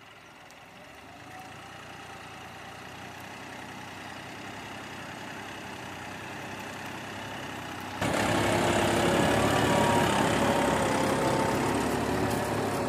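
John Deere tractor's diesel engine running, slowly growing louder, then suddenly much louder about eight seconds in.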